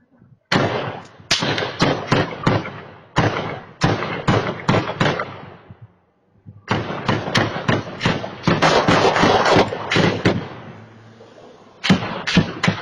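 Gunfire: many gunshots in rapid volleys, each crack trailing off in echo. A first string of shots, a pause of about a second near the middle, then a denser barrage that tails off, and another volley starting near the end.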